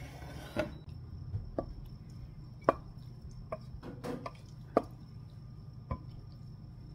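Wooden spatula knocking and scraping on a frying pan as thick sauce is pushed out onto a plate: a string of sharp knocks, roughly one a second, over a low steady hum.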